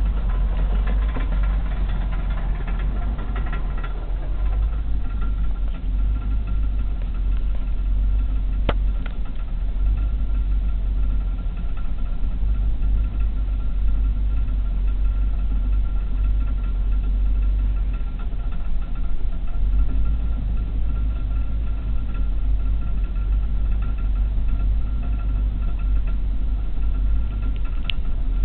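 Limousine's engine running with a steady low rumble and a faint steady high whine, with a single click about nine seconds in. This is an unexplained noise from the limousine that its owner is asking about.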